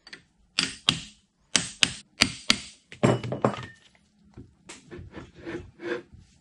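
Hammer blows on a metal drift, knocking the end bell off a vintage General Electric three-phase motor: a run of about eight sharp strikes in the first three and a half seconds, then softer knocks and clunks as the loosened end bell is handled.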